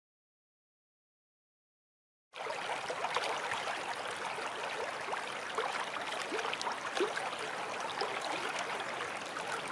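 Dead silence for about two seconds, then the sound of running water, like a babbling stream, cuts in abruptly and runs on steadily, full of small bubbling blips and drips.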